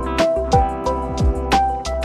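Background music with a steady drum beat and a sustained melody.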